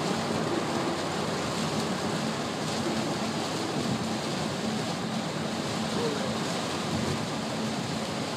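Steady cabin noise of a Honda car driving on a rain-soaked road: an even hiss of wet tyres and rain on the car, with a low engine hum underneath.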